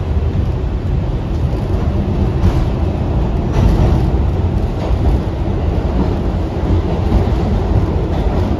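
R62A subway train running at speed: a loud, steady low rumble of steel wheels on the rails, with a few faint clicks in the middle.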